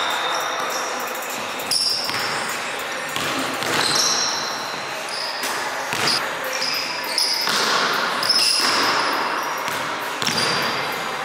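A basketball bouncing and being dribbled on a hardwood gym floor, with a few sharp bounces standing out and short high sneaker squeaks from players cutting on the court.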